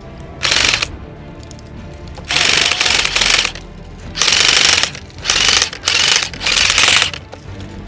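Airsoft electric rifles firing full-auto, a rapid mechanical clatter in about six bursts. The longest burst, about a second long, comes a couple of seconds in, and the rest follow in quick succession near the end.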